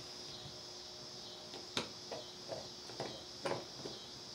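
Small screwdriver driving a screw back into an outlet faceplate: a handful of light, irregular clicks and scrapes beginning about a second and a half in, over a faint steady hiss.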